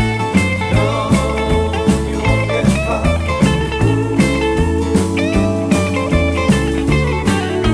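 Background music: an instrumental break of a blues-rock song with slide guitar, bass and a steady drum beat.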